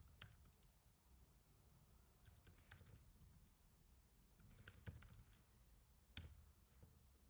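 Faint computer keyboard typing: two short bursts of keystrokes, then a single louder key press about six seconds in.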